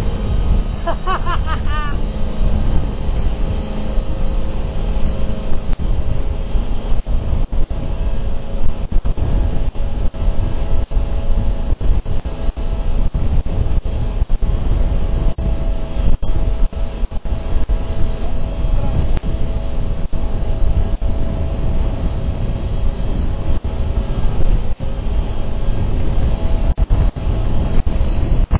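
A motorboat or jet-ski engine drones steadily under heavy wind rumble on the microphone. A brief wavering high call comes about a second in.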